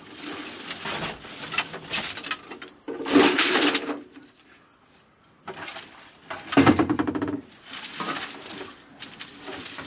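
Dry firewood sticks clattering and scraping against each other as they are gathered up by hand. Two short, louder calls sound about three seconds and six and a half seconds in.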